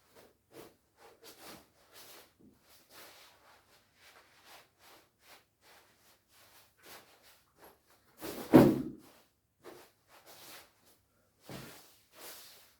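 Shiny nylon down jacket being handled, its fabric rustling in a string of short swishes, with one loud thump about two-thirds of the way through and a softer one near the end.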